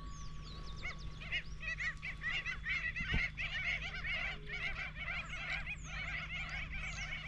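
A flock of birds calling, many short overlapping honking notes that build up about a second in and keep up at a fast, steady rate, with a few higher falling whistles over them. A single knock sounds about three seconds in.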